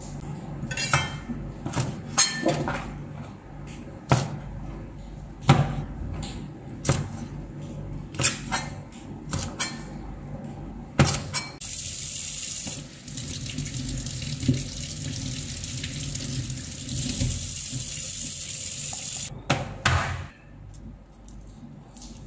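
A cleaver chopping onion on a plastic cutting board, irregular knocks of the blade on the board. About halfway through, a kitchen tap runs steadily into a stainless steel sink for about eight seconds and then stops, followed by a few more knocks.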